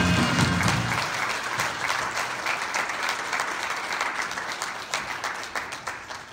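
Audience applauding, many people clapping together; the clapping thins out and fades away near the end.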